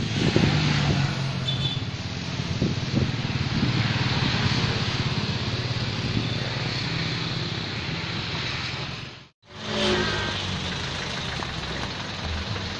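Road traffic, cars and motorcycles, passing with a steady engine rush; the sound drops out briefly about nine seconds in and the traffic noise resumes.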